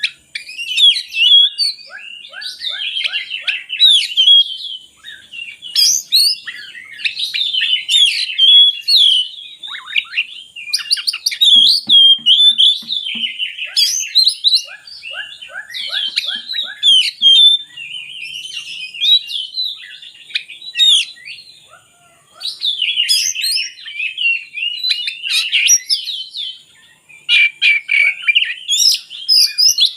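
Oriental magpie-robin (kacer) singing a long, varied song of rapid whistles, trills and chirps, broken by a couple of brief pauses.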